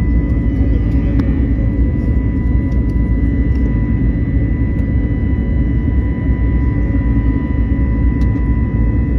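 Cabin noise of an Airbus A321neo climbing after takeoff: a steady, loud low roar from its CFM LEAP-1A turbofans and the airflow, with a thin steady whine on top.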